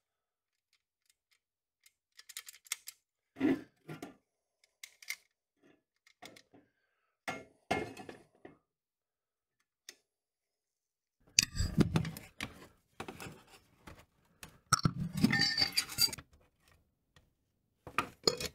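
Pressed-steel toy truck parts being handled and taken apart: scattered small metal clinks and knocks, with two busier, louder spells of clattering in the second half.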